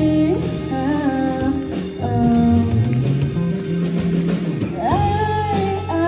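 Live rock band playing a song: a female voice sings the melody over electric guitar and a drum kit.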